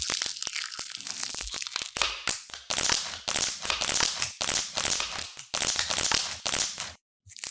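Close-miked crinkling and crackling, like material being crumpled and handled in irregular bursts; it breaks off for a moment near the end.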